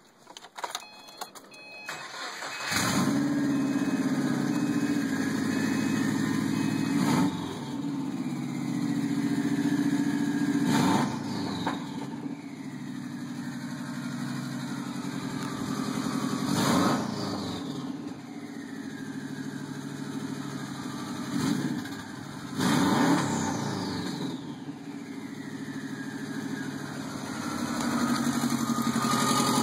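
Turbocharged 2.5-litre flat-four of a 2009 Subaru WRX, run with no catalytic converter, starting about two and a half seconds in and then idling. The throttle is blipped several times, and after each rev a turbo whine falls away as the turbo spools down.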